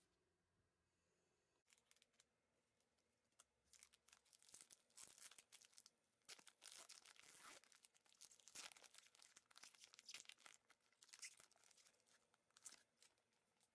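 Foil wrapper of an Epoch J.League 2020 Update trading card pack being torn open and crinkled in the hands: a run of crackling tears and rustles starting about two seconds in and stopping just before the end.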